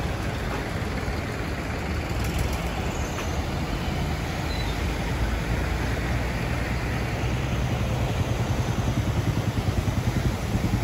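Road traffic driving through a flooded road: the engines of cars, trucks and motorcycles passing through standing water, with a steady wash of noise. A motorcycle engine grows louder near the end.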